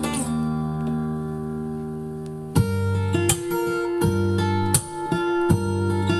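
Acoustic guitar music playing back from a vinyl record on a turntable with a Shure M75-6S cartridge. A chord rings and fades, then rhythmic strummed chords start about two and a half seconds in.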